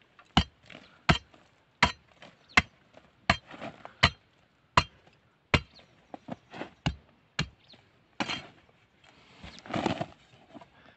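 A long-handled digging tool striking into the hardened clay wall of an earthen charcoal kiln, chipping it open: sharp strikes about one every three quarters of a second, then a few quicker lighter knocks, then the scrape of loosened earth and clay near the end.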